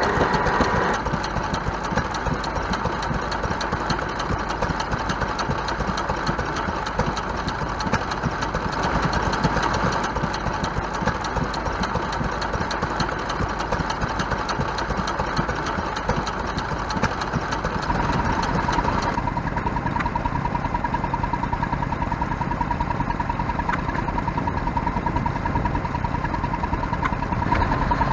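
Vintage stationary flywheel engines running steadily, one after another as the scene cuts. About two-thirds of the way through a steady high whine joins in and carries on to the end.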